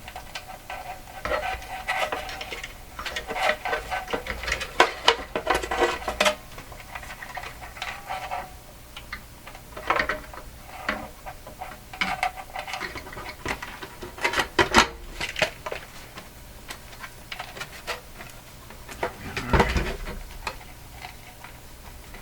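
Small metal parts and wires being handled and fed through a hole on a workbench: irregular clinks, rattles and clicks, a few ringing briefly.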